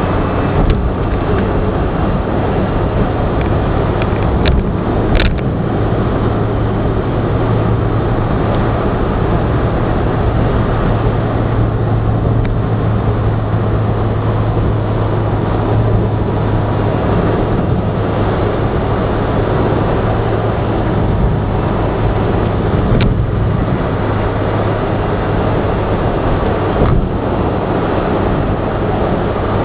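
Car driving at speed, heard inside the cabin: steady engine and tyre-on-road noise with a low steady drone, and a few brief clicks.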